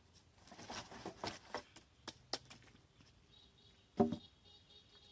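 Dry sticks and branches rustling and crackling as they are handled, with a string of sharp snaps, then a single louder knock about four seconds in.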